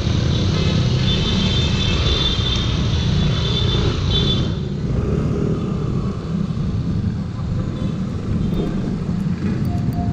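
Onboard sound of a motor scooter riding along the road: a steady low rumble of wind and engine, with a hiss that drops off about four and a half seconds in.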